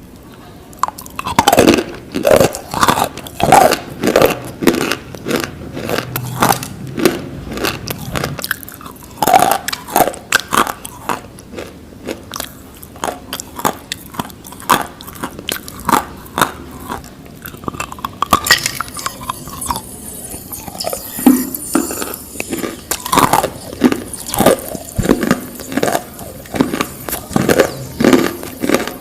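Close, loud biting and chewing of brittle, crunchy pieces, with repeated sharp crunches and crackles at an irregular pace.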